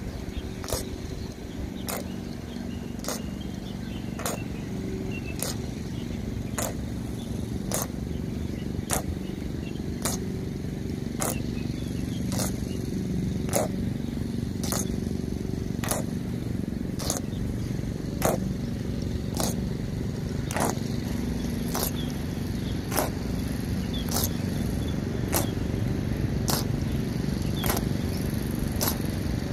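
Honour guards' boots striking the pavement in step during a slow ceremonial march: a sharp click roughly every two-thirds of a second, keeping an even beat throughout, over a steady low background rumble.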